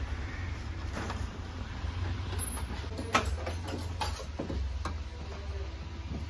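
Scattered clicks and knocks of hands working wiring and metal inside a car's open tailgate frame, the sharpest a little past three seconds in, over a steady low hum.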